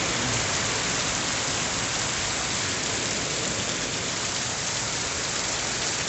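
Very heavy tropical rain pouring down steadily, a dense even hiss of rain striking the surfaces.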